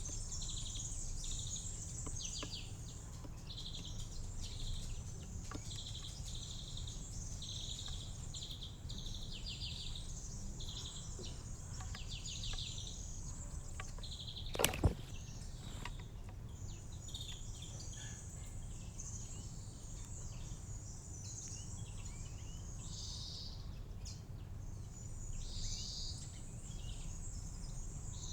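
Small songbirds chirping with short notes repeated again and again over a steady low background rumble. About halfway through there is one sharp knock.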